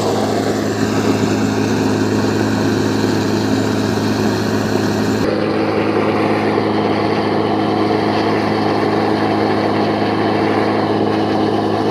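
Steady running of an engine-driven machine: a constant low hum under a dense rushing noise. The top of the sound drops away suddenly about five seconds in.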